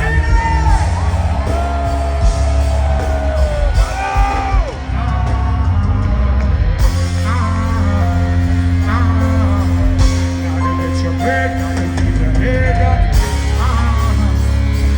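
Live band playing loud with heavy bass and held notes, with short vocal yells and sung phrases over it.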